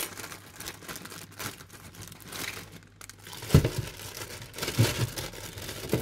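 Plastic bag crinkling as Brussels sprouts are handled and tipped out of it. From about halfway through come a few dull thuds as the sprouts drop into a plastic colander.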